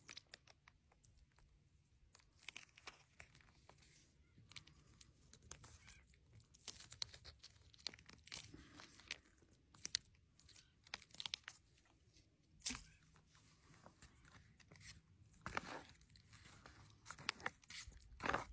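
Faint, irregular crinkling and crackling of foil-laminate MRE pouches being handled: the cheese spread packet is squeezed and rolled to press the cheese into the entrée pouch.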